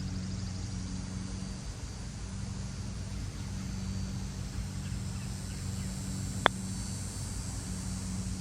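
A single sharp click of a putter striking a golf ball about six and a half seconds in, over a steady low hum.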